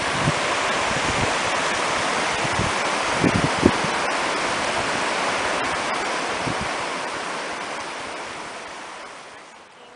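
Steady rushing of a shallow braided mountain creek running over gravel, with gusts of wind buffeting the microphone. The rush fades away over the last few seconds.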